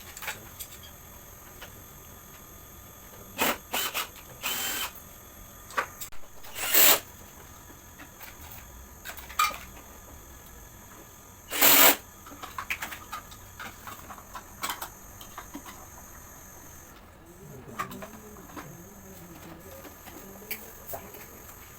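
Cordless drill-driver running in about six short bursts, two of them loud, with clicks and knocks of parts being handled in between.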